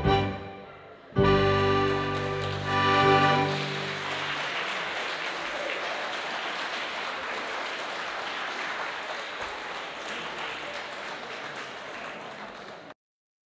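An accordion, violin and keyboard band ends a Scottish country dance reel with a held closing chord, and a roomful of dancers breaks into applause over it. The clapping carries on steadily for several seconds and then cuts off abruptly near the end.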